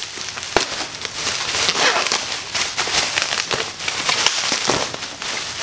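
Plastic bubble wrap crinkling and crackling in irregular sharp clicks as it is handled and pulled apart by hand, with rustling against a cardboard box.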